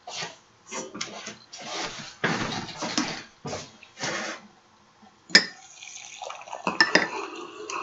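Kitchen clatter as a stainless steel stovetop kettle is fetched. About five and a half seconds in, after a sharp click, hot water is poured from the kettle into a mug, a steady trickling splash, with a spoon clinking in the mug as it is stirred.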